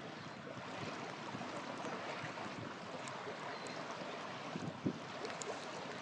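Wood campfire burning over a steady rushing noise, with a few faint crackles and pops and a soft thump near the end.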